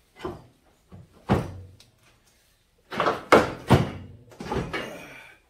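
Can-Am Maverick 1000R engine knocking and clunking against the frame as it is worked out of the chassis: a few light knocks, then a cluster of loud bangs about three seconds in.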